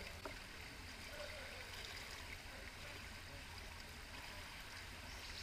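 Faint swimming-pool water sounds over a steady low hum, with a single short click just after the start.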